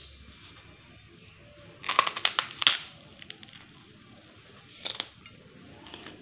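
A kerupuk, a crisp fried cracker, crunching and breaking: a dense burst of crackles about two seconds in, then a shorter crunch near five seconds.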